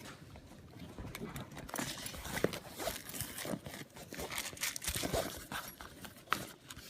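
Hands rummaging through items in the zippered pocket of a bagpipe case: irregular rustling and crinkling with many small clicks and knocks.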